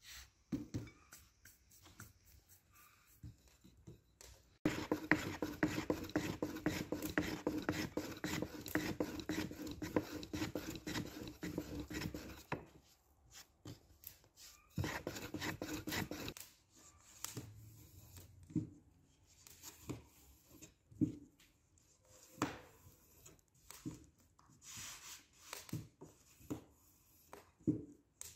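Long thin wooden rolling pin rolling out kutab dough on a floured wooden board: a dense run of rapid rolling strokes lasting about eight seconds, then a shorter run. After that come scattered light taps and clicks, with a spoon spreading filling on the dough near the end.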